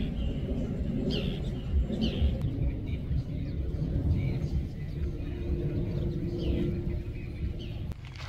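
A few short bird chirps, each a quick falling note, over a steady low rumble, with a steady hum joining in the second half.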